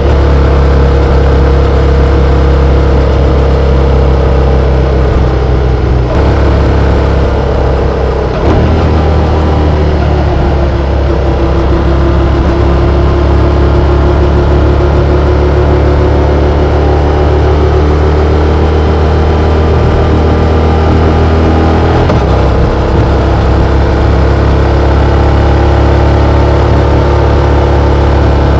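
Yamaha XSR700's 689 cc parallel-twin engine running under way, heard on board the moving motorcycle. The engine note rises and falls with the throttle, with brief breaks about six, eight and twenty-two seconds in.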